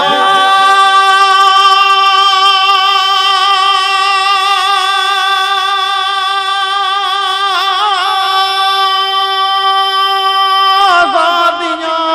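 A man singing an Urdu ghazal, holding one long high note with a slight waver for about eleven seconds, then breaking into a short falling phrase near the end.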